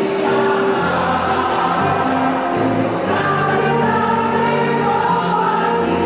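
A large church choir singing together in parts, holding long notes.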